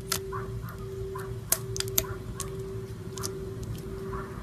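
Fingers pressing and squeezing glossy slime, making several sharp, irregular wet clicks and pops as air pockets burst, over a steady low hum.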